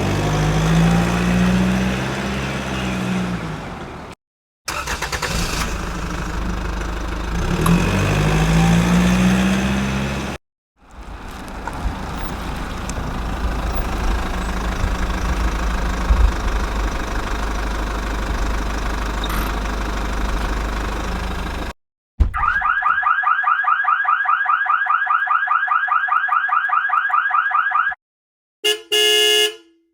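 A string of separate sound effects: an engine revving up and down twice, then running steadily for about ten seconds. Then a fast, evenly pulsing electronic alarm tone lasts about six seconds, followed by a few short electronic beeps near the end.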